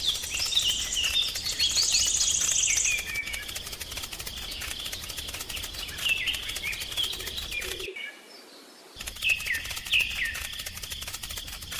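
Small birds chirping with many short falling calls, and a high buzzy trill in the first few seconds. The chirping drops out for about a second near the eight-second mark.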